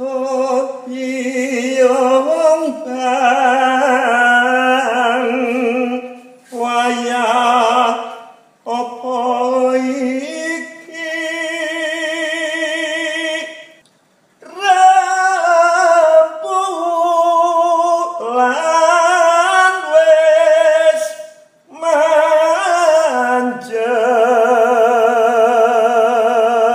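A woman singing alone without accompaniment, in several long phrases separated by brief pauses, the held notes wavering with a strong vibrato.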